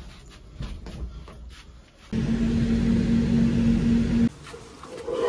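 Elevator running: a steady electric hum over a low rumble, starting abruptly about two seconds in and cutting off about two seconds later. Faint handling clicks come before it.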